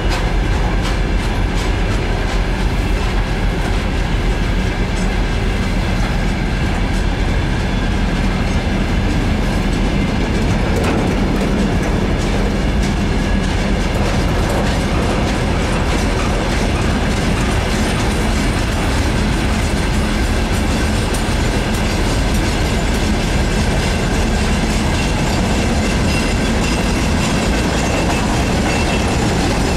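A long freight train of tank cars and boxcars rolls steadily past close by, its wheels clattering over the rail joints. A thin high wheel squeal comes in near the end.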